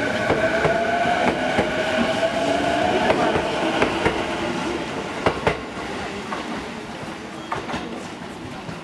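JR E233-series electric commuter train pulling out and drawing away, its traction motors whining and rising in pitch as it gathers speed, wheels clicking over rail joints. The sound fades steadily as the train leaves.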